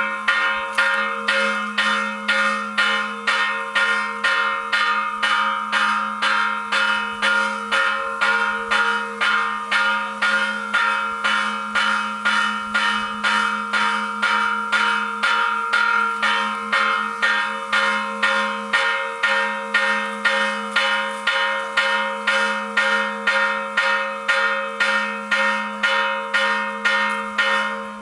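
A church bell struck quickly and evenly at about two strokes a second, the same pitch each time, its ringing running on between strokes; the striking stops near the end.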